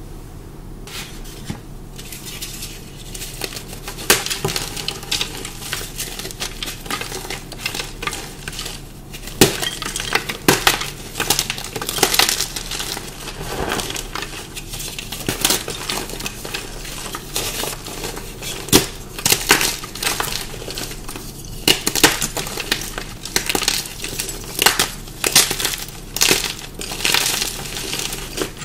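Dyed and pasted chalk blocks crunching in a run of sharp, irregular crunches, starting about four seconds in. The chalk is the crunchy, dusty kind that dyeing and pasting tend to produce.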